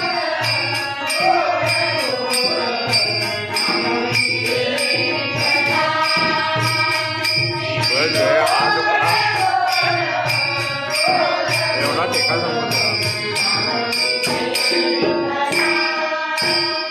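A women's group singing a Marathi devotional bhajan, with a harmonium holding steady notes underneath and a regular beat of small jingling percussion.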